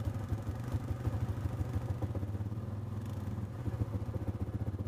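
Side-by-side utility vehicle's engine running steadily at low revs, with a fast, even low throb.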